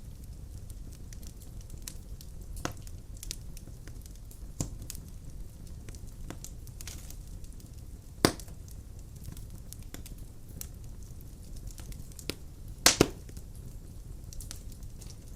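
Wood fire burning in a fireplace: a steady low rumble of flame with scattered sharp crackles and pops. The loudest is a single pop about eight seconds in, then a double pop near the end.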